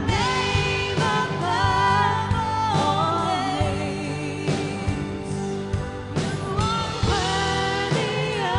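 Congregational worship music: a band playing with lead vocals singing a sustained, gliding melody over held chords and a steady beat.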